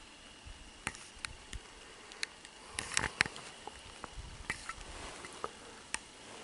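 Footsteps through dry, matted grass: irregular soft crackles and rustles, a little louder about three seconds in.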